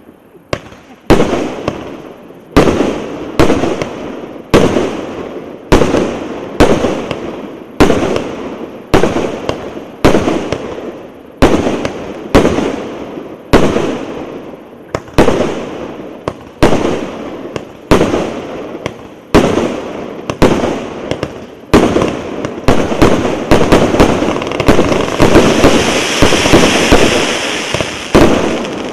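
A 238-shot "Big Ben" firework cake firing shot after shot, roughly one a second, each a sharp bang with a fading tail. Near the end the shots run together into a dense crackle.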